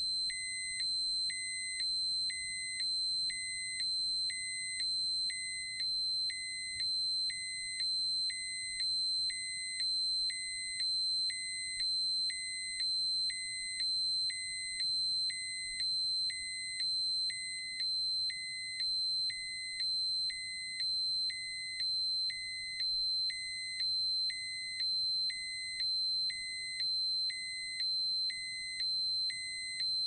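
Electronic dosimeter alarm: a continuous high-pitched tone with a lower tone pulsing on and off about once a second, in an even, unbroken pattern. A dosimeter alarm warns that a set radiation dose or dose-rate threshold has been passed.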